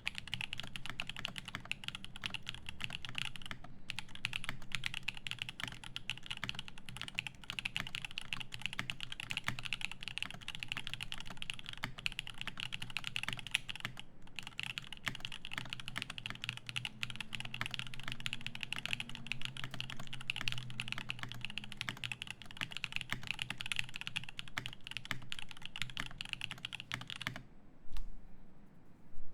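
Fast, continuous typing on a GHS.RAR mechanical keyboard fitted with lubed Zaku switches on an aluminium plate, with GMK keycaps. Near the end the typing stops, followed by a louder knock.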